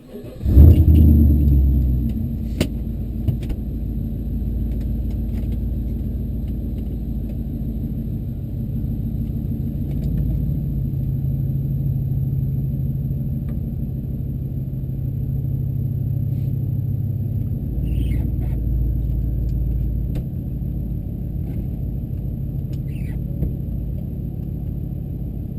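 Pontiac GTO's LS2 V8, freshly top-end rebuilt with new LS7 lifters, starting with a loud flare about half a second in and then settling into a steady idle.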